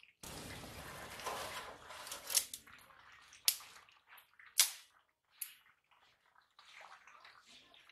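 Dry straw and sticks rustling, then four sharp snapping cracks about a second apart as dry material is pulled from a thatched roof edge.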